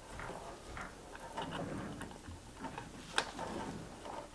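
Quiet handling of a small control box and its cable, with light ticks and rustles and a sharper click about three seconds in as a cable connector is plugged in.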